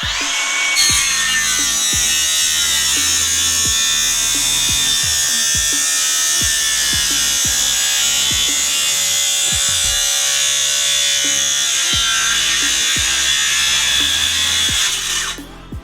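FLEX 24V brushless in-line circular saw running through a long cut in wood with a badly dulled carbide blade. It makes a steady high-pitched whine that stops about a second before the end, and the dull blade scorches the wood into smoke. Background music with a beat plays underneath.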